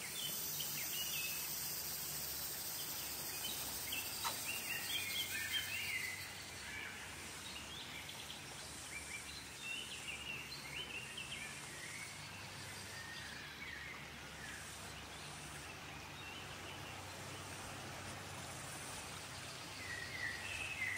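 Small birds chirping in short calls over a steady background hiss. The chirping is busiest and a little louder in the first third, then thins out.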